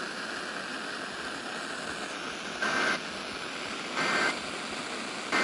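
Emergency Alert System SAME end-of-message data bursts: three short two-tone squawks about a second and a half apart over steady radio hiss, signalling the end of the warning broadcast.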